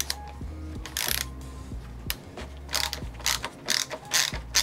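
Ratchet screwdriver clicking in short bursts as it backs out the saddle screws of an electric unicycle. The bursts come closer together in the second half.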